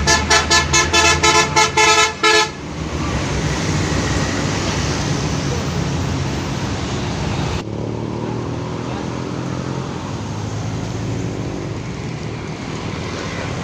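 Bus telolet horn, a multi-tone musical air horn, blaring a rapid string of short chord blasts, about four a second, for the first two and a half seconds. Steady bus engine and traffic noise follows.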